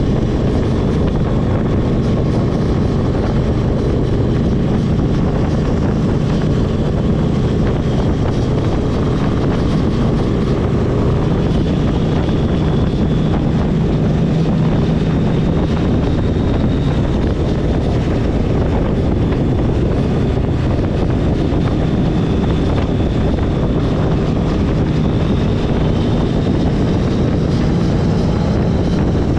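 Motorcycle engine running steadily at road speed, mixed with wind rushing over the microphone.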